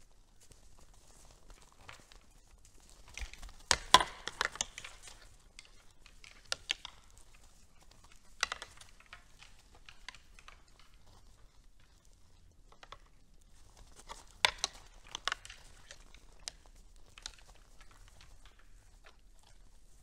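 Red deer feeding at a hay bale and wooden feeder in snow: scattered crunching, rustling and sharp clicks of hay and snow, loudest in a cluster about four seconds in and another around fifteen seconds.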